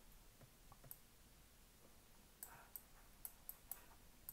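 Faint clicks of a computer mouse, one or two early on and a quick run of about six in the second half, over near-silent room tone.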